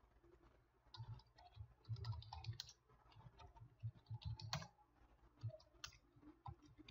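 Faint computer keyboard typing: irregular keystroke clicks starting about a second in, in quick runs with short pauses.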